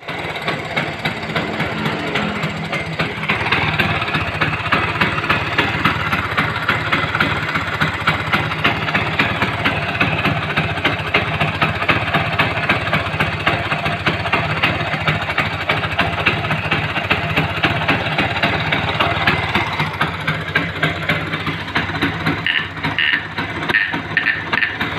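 Motorcycle engine idling steadily while it warms up, with a fast, even pulsing beat.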